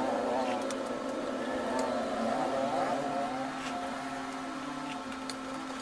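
Steady mechanical hum with a whir, under soft eating sounds: a spoon and fork clicking against a ceramic bowl, and noodles being slurped about four seconds in.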